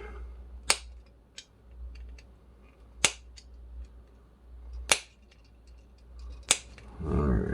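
Sharp clicks of a tiny precision screwdriver working the toy's small plastic and metal parts, bending a contact bar to make it grip tighter. Four loud clicks come about two seconds apart, with fainter ticks between them, over a low steady hum.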